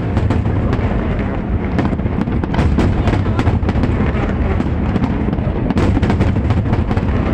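Aerial fireworks shells bursting in quick succession: many sharp cracks and pops over a continuous low rumble.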